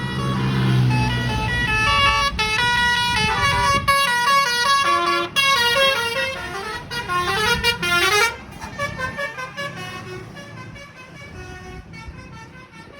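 Telolet bus horn, a multi-tone horn playing a quick stepped melody of several notes, loud until it cuts off sharply about eight seconds in, with fainter horn notes after. A bus engine rumbles under the first second or so.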